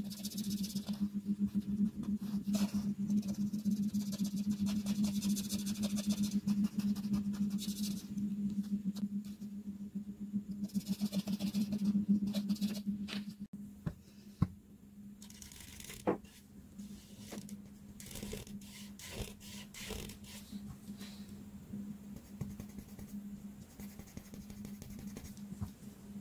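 Art marker tips stroking across paper in scratchy bursts of a second or two, over a steady low hum. About halfway through it cuts to a quieter take with shorter strokes and scattered clicks.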